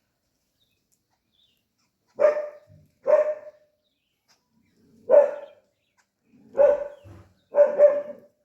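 A dog barking: five short barks spaced one to one and a half seconds apart, starting about two seconds in.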